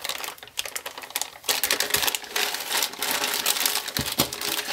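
Thin plastic hardware bag crinkling and rustling as it is opened and handled, with rapid small clicks of the metal mounting parts inside it.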